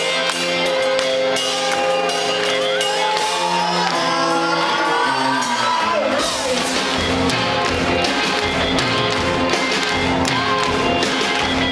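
Live rock band playing loudly, with shouts and whoops from the crowd. Held chords at first, then the bass and drums come in about six seconds in.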